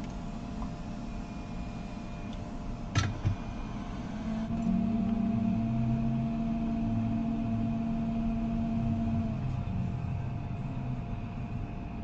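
Steady fan-like blowing hum of a hot-air rework station on the repair bench. There is a sharp click about three seconds in, and a steady low hum joins from about four seconds to about nine seconds.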